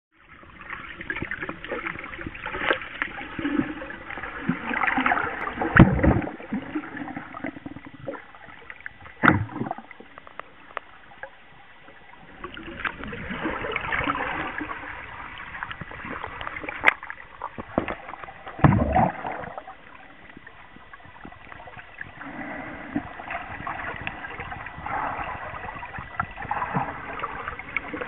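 Water sloshing and bubbling around a snorkeler's camera held underwater, swelling and fading, with a few dull thumps along the way.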